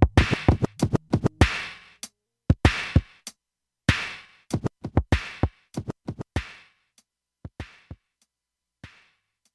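Hip hop drum-machine beat playing alone, kicks and snares with no melody over them. The pattern thins out in the second half to a few scattered hits.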